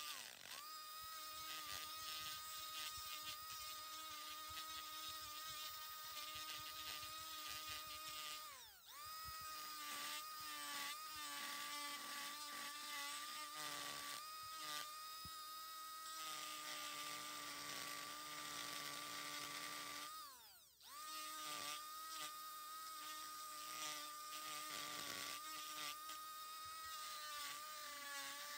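Handheld rotary tool with a ball-shaped burr grinding a pine knot, a steady high whine. Twice, about nine and twenty-one seconds in, the pitch drops sharply and climbs back up as the motor slows and spins up again.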